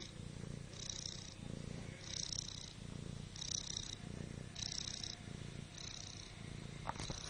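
Domestic cat snoring while lying on her back, a steady breathing rhythm of about one breath every second and a bit: a low rumble alternating with a higher hiss on each breath, six breaths in all. A couple of light clicks near the end.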